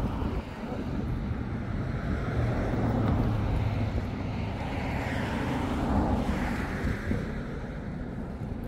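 Steady rushing of river water mixed with wind buffeting the microphone, swelling somewhat in the middle.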